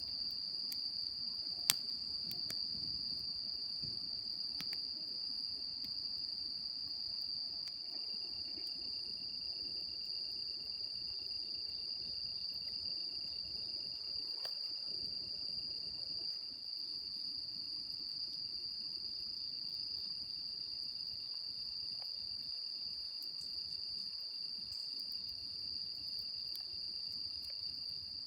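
An insect trilling as one unbroken, steady high note, with a fainter pulsing trill beneath it. Under it a small wood campfire crackles with scattered light pops, and there is one sharp pop about two seconds in.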